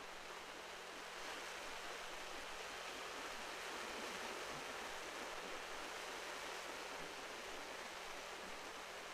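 Sea surf washing on the shore as a steady hiss-like noise with no distinct breaks, a little louder from about a second in.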